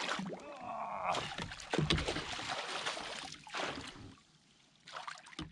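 A large hooked bass thrashing and splashing at the surface right beside a kayak as it is brought to the net, in irregular splashes over about four seconds, then one more brief splash near the end.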